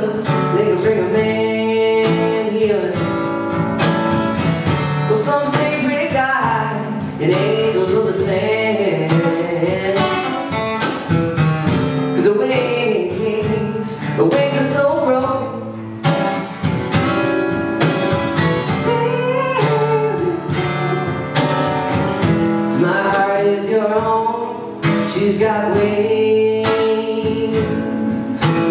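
Live acoustic band music: two acoustic guitars played together with cajon beats and a sliding melody line over them.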